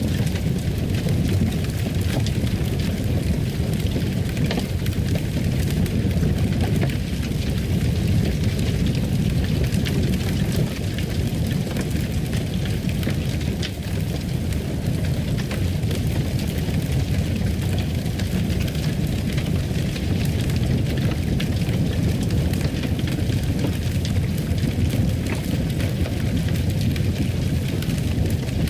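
Wood fire crackling in a fireplace: a steady low rumble of flames with scattered small pops and crackles throughout.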